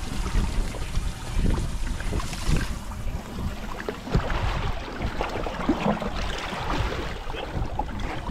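Wind gusting on the microphone over choppy lake water lapping against a bass boat's hull, with a few small knocks.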